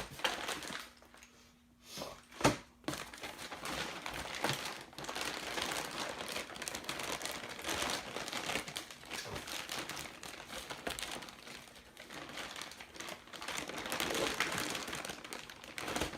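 Plastic packaging crinkling and rustling continuously as a bundled automotive wiring harness is handled, after a single sharp click about two and a half seconds in.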